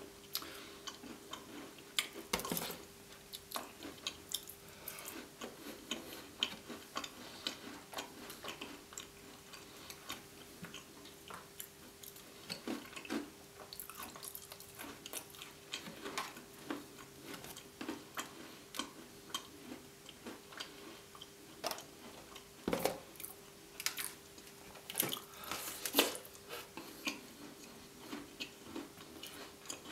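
A person chewing and biting gingerbread: soft irregular crunches and mouth clicks, with a few louder bites, over a faint steady hum.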